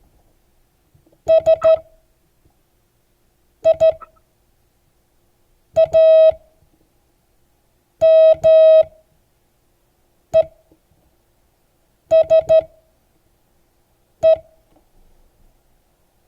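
Morse code tone sending the word SIAMESE slowly, one character about every two seconds: three dits, two dits, a dit and a dah, two dahs, a dit, three dits, a dit. It is a single steady beep switched on and off for short dits and longer dahs.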